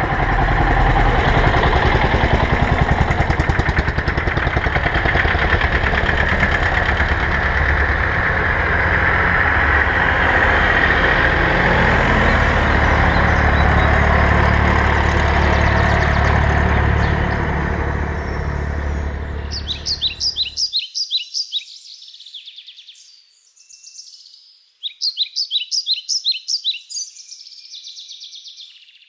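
Vintage tractor engines running as the tractors drive past close by. About twenty seconds in, the engine sound cuts off abruptly, leaving birdsong: two bursts of rapid repeated chirps.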